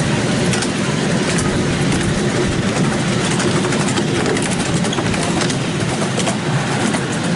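Miniature steam train running along its track, heard from aboard the carriages: a steady rumble of wheels on rail with irregular clicks through it.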